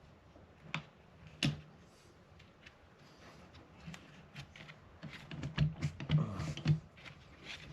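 Scattered clicks and light knocks of hands prying at plastic parts, a small cover cap being worked off the wiper arm. A quick cluster of clicks comes about five to seven seconds in.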